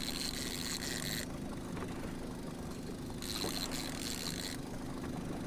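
Boat motor running steadily at trolling speed, with two stretches of high whirring, each a bit over a second long, near the start and about three seconds in.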